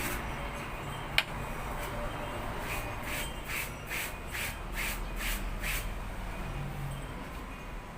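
Rhythmic rasping strokes, about two and a half a second, coming in a run from about three seconds in, with a single sharp click about a second in.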